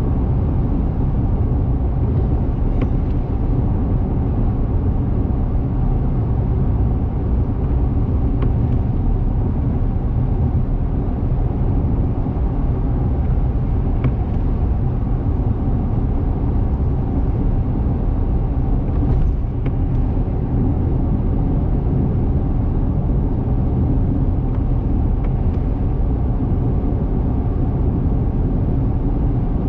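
Car driving at highway speed: a steady, low rumble of road and engine noise, with a faint click about every five to six seconds.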